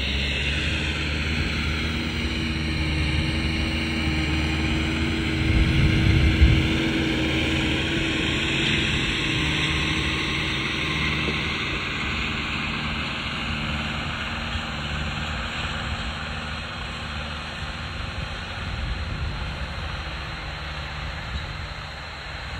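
Landini Mythos tractor's diesel engine running steadily under load while pulling a cultivator through the soil, with a brief louder rumble about six seconds in.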